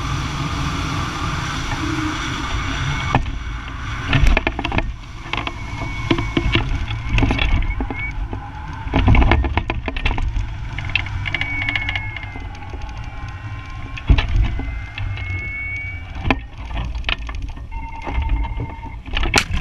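Wind rushing and buffeting over the microphone of a hang glider's frame-mounted camera on final approach to landing, a steady low rumble throughout. About three seconds in the high hiss drops away, and many short knocks and rattles follow.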